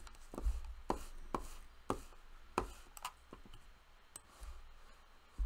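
Faint, irregular clicks from a computer mouse and keyboard, about eight short ticks spread over a few seconds, over a low steady hum.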